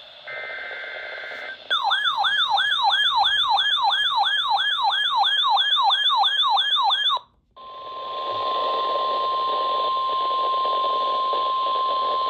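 Emergency alert tone sequence. A short burst of SAME header data tone comes first, then a fast, repeating up-and-down sweeping alarm tone for about five seconds. After a brief gap comes a steady single-pitch tone for about five seconds: the NOAA Weather Radio 1050 Hz warning alarm that announces a new severe thunderstorm warning.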